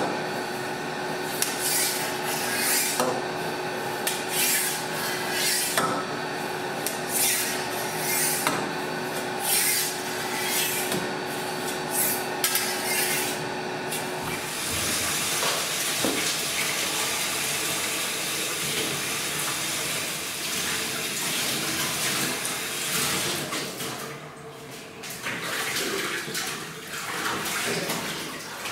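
Curds and whey swishing in a cheese vat with a regular stroke about every second and a half over a steady hum, then, after a cut about halfway through, a steady rush of running water that turns uneven near the end.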